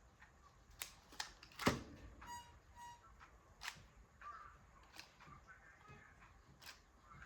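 Scattered light clicks and taps from handling materials at a work surface, with one sharper knock a little under two seconds in. Two short high tones sound just after it.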